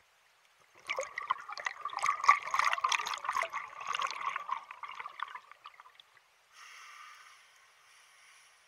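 Scuba diver's exhaled breath bubbling out of the regulator: a burbling, crackling rush of bubbles that starts about a second in and lasts about four and a half seconds. It is followed by a fainter, steady hiss as the next breath is drawn through the regulator.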